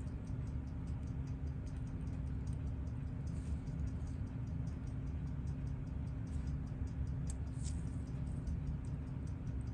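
Steady rapid ticking, about five ticks a second, like a mechanical timepiece running, over a constant low hum, with a couple of brief small scrapes about a third of the way in and near the end.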